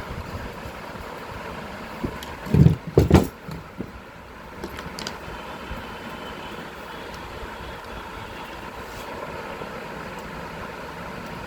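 A few loud knocks about two and a half to three seconds in, over a steady background hum.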